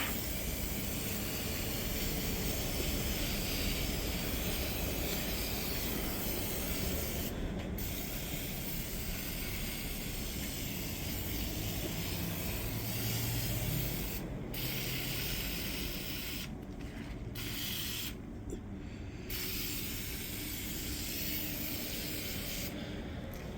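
Aerosol can of Easy-Off oven cleaner spraying onto a cast iron skillet to strip its old crust, in long hissing sprays with a few short pauses between them.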